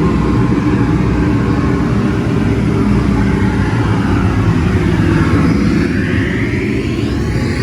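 Car-audio speaker wall (paredão) driven by automotive amplifiers, playing loud, bass-heavy sound with a sweep rising in pitch in the second half.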